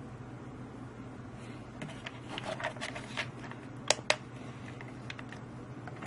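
Series of small, sharp clicks and taps from the PID temperature-controller rig, with two louder clicks about four seconds in, over a steady low hum.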